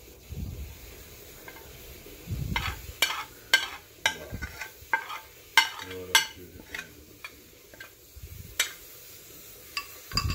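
Ceramic soup spoon scraping and clinking against a ceramic plate and bowl, a run of sharp, irregular clinks as mashed chicken is pushed off the plate into broth, then stirring in the bowl near the end.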